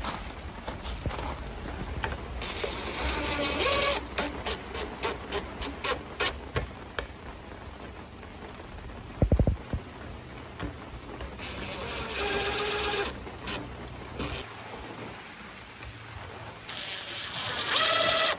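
Cordless DeWalt 20V MAX XR impact driver driving screws through a small steel hinge into a plastic barrel, in three short runs of about a second and a half each: about two and a half seconds in, about eleven and a half seconds in, and near the end. Scattered clicks and a brief knock from handling come between the runs.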